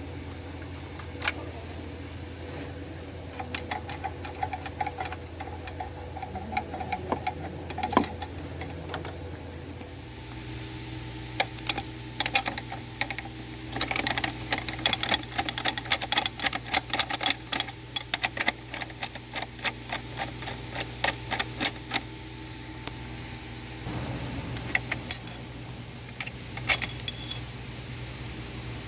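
Metal hand tools clinking and clicking against metal parts, with stretches of rapid clicking in the middle, over a steady low hum.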